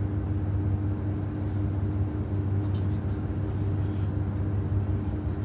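Steady low hum inside a JR Shikoku 2700 series diesel railcar as it stands with its engines idling.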